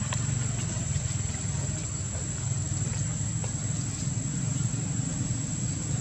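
A steady low engine rumble, like a motor idling nearby, under a thin high whine that holds throughout, with a few faint clicks.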